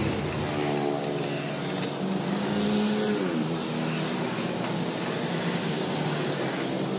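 A motor vehicle engine running, its pitch falling sharply about three seconds in and then holding steady.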